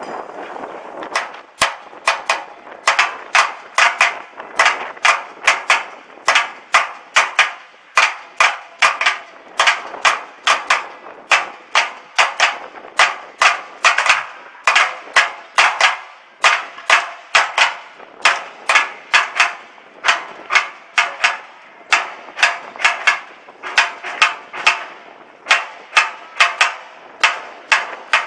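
Loud, regular banging: sharp strikes at about three a second, kept up without a break from about a second in.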